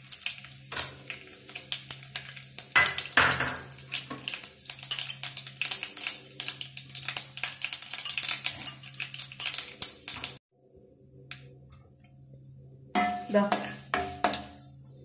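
Mustard seeds spluttering in hot oil in a nonstick kadai with dry red chillies: a fast, irregular crackle of small pops and ticks against the pan. It cuts off suddenly about ten seconds in, and near the end a spatula scrapes and stirs the pan.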